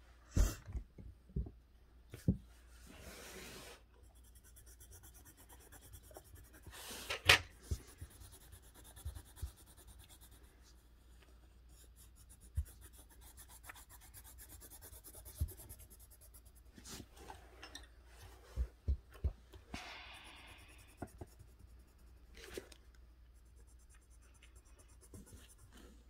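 Colored pencil shading on paper: quiet scratchy strokes that come and go, with a few sharp taps scattered through.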